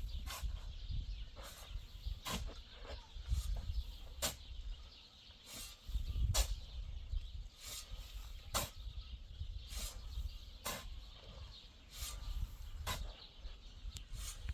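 A series of sharp knocks or taps at irregular intervals, roughly one a second, over a steady low rumble.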